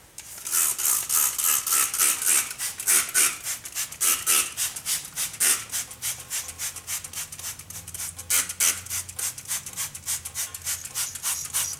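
Hand spray bottle squirted rapidly over and over, several short hissing squirts a second, spraying soapy water over a rear drum brake assembly to wash off the brake dust.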